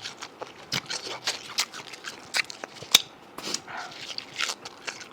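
Close-miked eating sounds: irregular crunchy bites and wet chewing clicks, with one sharper crack about three seconds in.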